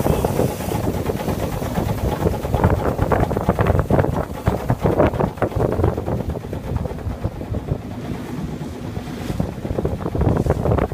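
Wind buffeting the microphone aboard a small boat under way, a rumbling, gusting noise that swells and eases.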